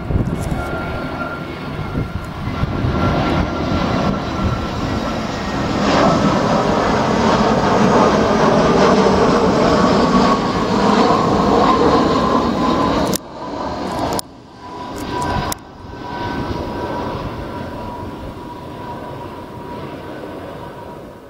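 Jet airliner passing close on its landing approach, the engines' roar and high whine building to a peak about halfway through, the whine sliding slowly lower. The sound drops out abruptly a few times around the middle, then a fainter roar fades away.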